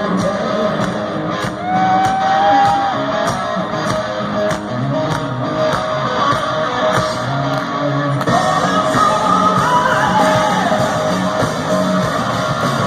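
Rock band playing live: an electric guitar lead with sustained, bending notes over bass and drums, with regular cymbal hits.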